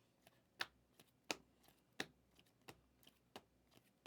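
A faint series of sharp clicks, about one every 0.7 seconds, with a few softer ticks between them.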